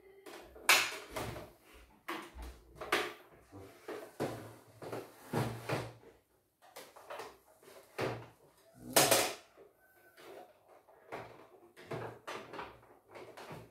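Irregular knocks and clatters of hard plastic embroidery-machine parts being handled and set down on a workbench, the loudest about a second in and another around nine seconds in.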